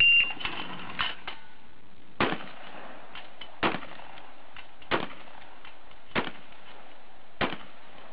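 A short high electronic beep from a shot timer, then six shotgun shots fired at a steady pace about one and a quarter seconds apart.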